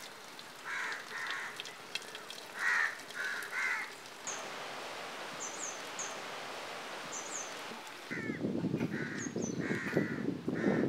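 Crows cawing in short repeated calls, with a small bird chirping faintly and high in between. About eight seconds in, a rough, low rushing noise joins under the caws.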